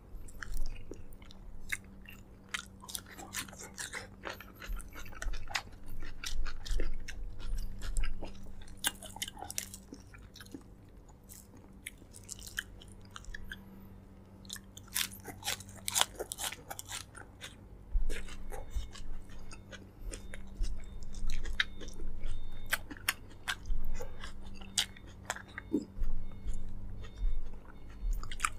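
Close-miked eating sounds: a person chewing and biting into braised pork leg, with wet smacks and crisp clicks at an uneven pace. A steady low electrical hum runs underneath.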